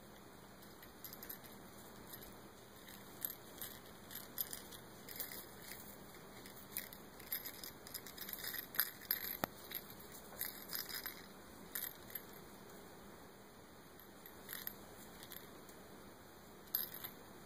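A cat's claws and paws scratching and rustling against a small crocheted ball toy and a yarn blanket. It makes a run of short, sharp crackly scratches, busiest in the middle, with a few more near the end, over a faint steady hiss.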